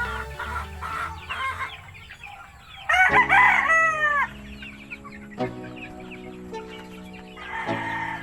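A gamefowl rooster crows loudly about three seconds in, the call falling in pitch at its end, and another crow begins near the end, over background music.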